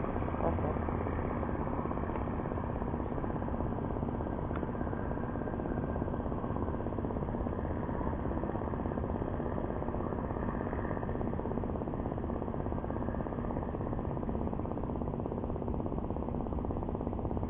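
A steady, even low drone of an idling engine, unchanging throughout.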